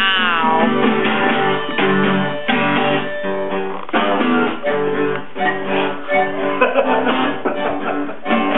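Live blues jam: strummed guitar chords in a steady rhythm with a harmonica playing over them, its notes bending just at the start.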